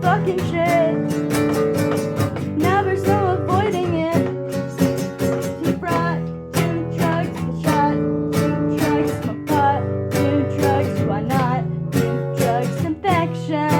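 Music: strummed guitar with a singing voice over it, at a steady beat.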